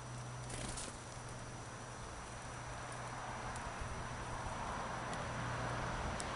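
Great tit and blue tit pecking and hopping among seed scattered on a stone surface: a few faint, light ticks and a brief rustle about half a second in, over steady outdoor background noise with a low hum.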